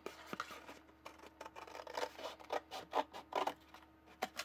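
Thin cardboard snack box being handled and worked open by hand: irregular short scratching and rustling of the cardboard, busier in the second half.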